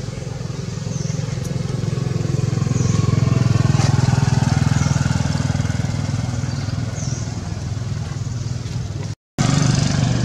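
A motor engine running, swelling to its loudest about four seconds in and then easing off, like a vehicle passing. A short high chirp repeats about every second and a half, and all sound drops out for a moment near the end.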